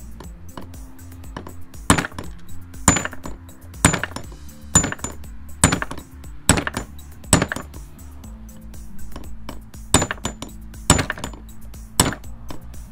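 Hammer striking a steel pin punch set in a differential carrier, trying to drive out a stuck pin: about ten sharp metallic taps, seven at roughly one a second, a short pause, then three more, each with a brief ring.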